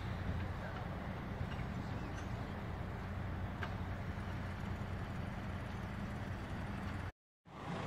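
A large engine running steadily, a low even drone. It cuts off suddenly about seven seconds in.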